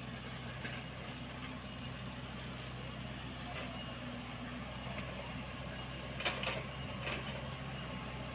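Komatsu PC75UU mini excavator's diesel engine running steadily at work, digging soil. A few sharp knocks come through between about six and seven seconds in.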